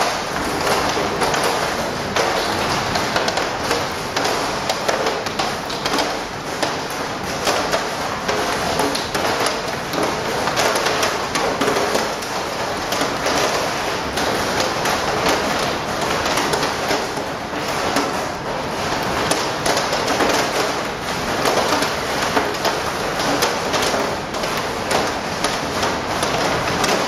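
Hail storm: hailstones and rain pelting the house and patio in a dense, steady clatter of many small hits over a rushing hiss, heard through the window glass.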